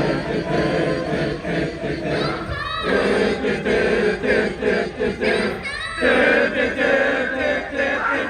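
Crowd of fans chanting an idol-concert call in unison together with the performers, with no backing music: many voices sung and shouted at once.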